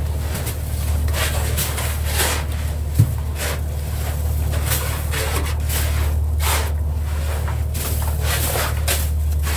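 Steady low machine hum under repeated short rushing, scraping noises as a long-handled tool works through fish and ice in a fish hold, with one sharp knock about three seconds in.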